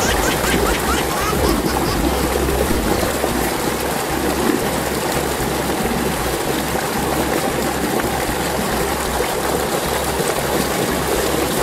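Water running steadily in a shallow irrigation channel, an even rushing hiss with a low rumble underneath.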